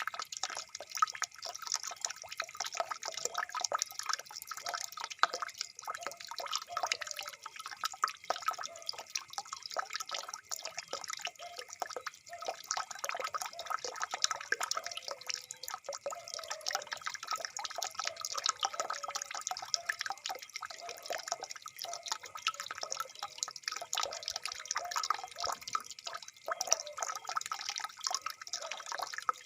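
Water flowing in a rice field, trickling and gurgling with many quick drips and small splashes.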